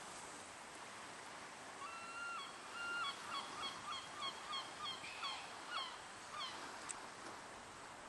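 A bird calling: two longer, level honking notes, then a run of short falling notes at about three a second that stops after a few seconds.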